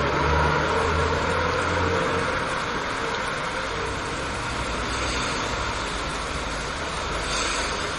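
Heavy rain falling steadily, with a low rumble in the first two seconds that fades out.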